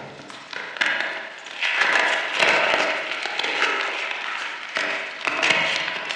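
Reformed chalk chunks crunching and crumbling in a run of sharp crackles and gritty crunches, loudest about two to three seconds in.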